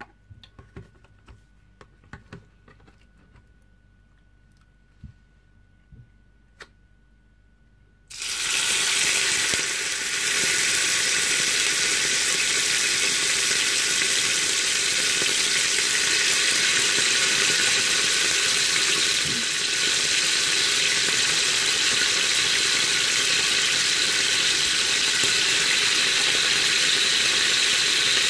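A few light taps of a spatula in a plastic tub, then, about eight seconds in, soy-and-lemon-marinated turkey pieces go into hot oil in a frying pan and a loud, steady sizzle starts suddenly and holds.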